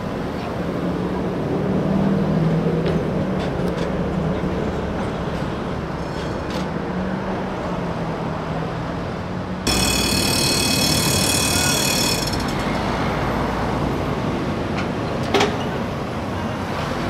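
Tatra K2YU articulated tram running along street track with a low steady hum over traffic noise. Partway through, a tram gives a high-pitched metallic squeal lasting a couple of seconds, followed later by a single sharp clack.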